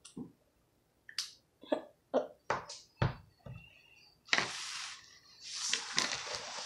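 A series of short clicks and knocks as a felt-tip marker is handled, capped and set down on a wooden table, with one heavier knock about three seconds in. This is followed by paper rustling and scraping as a spiral notebook is slid and lifted off the table.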